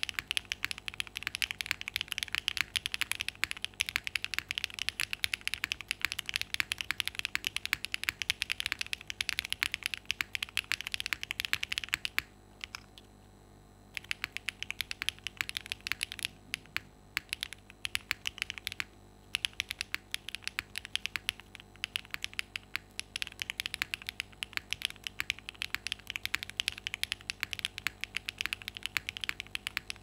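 Typing on a Dots87 mechanical keyboard with Y1 switches, GMK Oblivion keycaps and a polycarbonate plate: a fast, steady stream of keystrokes. About twelve seconds in it stops for a couple of seconds, then comes back sparser before picking up to full speed again.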